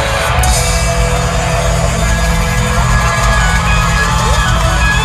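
Live country band playing an instrumental passage with guitars, bass and drums, loud through the venue's sound system.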